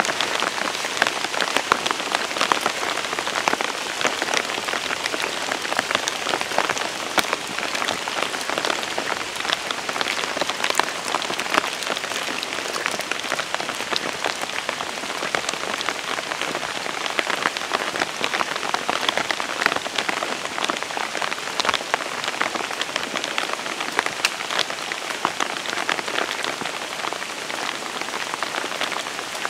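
Steady rain falling on trees and ground, a dense, even hiss full of small drop ticks.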